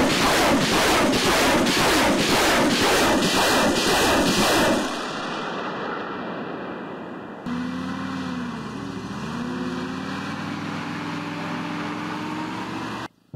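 BM-21 Grad multiple rocket launcher firing a salvo, rockets leaving in rapid succession at about two a second until the firing stops about five seconds in. Later the launcher truck's engine runs as it drives off, its pitch dipping and rising.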